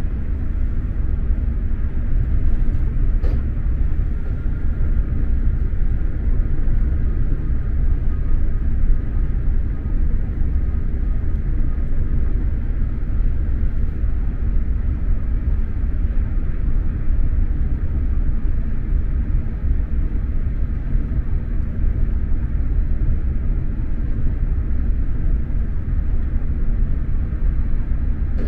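Steady low rumble of an X2000 electric high-speed train running at speed, heard from inside the passenger car, with a faint steady hum and a single brief click about three seconds in.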